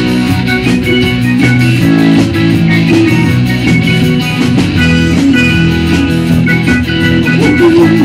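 Live rock band playing: electric guitar over bass guitar, keyboard and drums, with a steady drum beat throughout.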